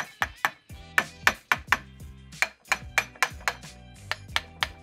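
Hammer tapping repeatedly on the cast-steel ears of a driveshaft yoke, a quick run of sharp metallic knocks about four a second. The taps seat the needle bearings of a newly fitted universal joint and loosen a joint that is hard to turn.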